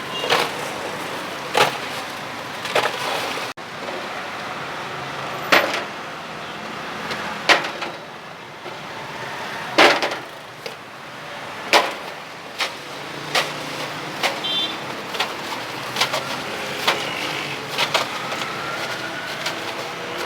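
Sharp utensil knocks at a street-food stall, about twenty irregular strikes that come quicker in the second half, over steady street traffic noise.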